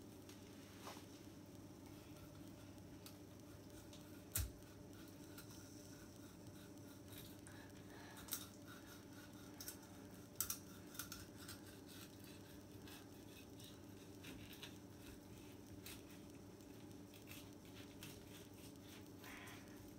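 Faint sounds of a knife filleting a sea bream on a plastic cutting board: quiet scraping and slicing along the fish's bones, with occasional sharp clicks. The loudest click comes about four seconds in and a cluster follows around ten seconds, over a low steady hum.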